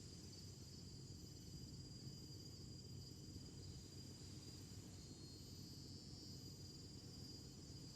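Faint, steady chorus of insects in vegetation: a continuous high-pitched trill that swells and fades slightly, over a low rumble.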